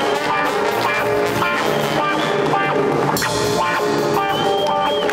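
Live jazz-funk band playing: horn section holding notes over electric guitar, piano and drum kit.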